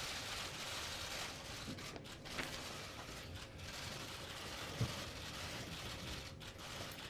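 Steady room hiss with scattered faint clicks of camera shutters.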